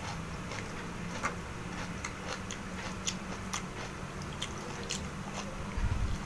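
A person chewing and biting food close to the microphone: many small, irregular crisp crunching clicks over a steady low hum, with a dull low thump near the end.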